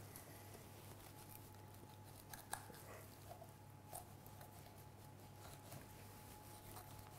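Faint clicks and light scraping of a boning knife cutting meat away from the bone of a leg of lamb on a wooden board, the sharpest click about two and a half seconds in, over a steady low hum.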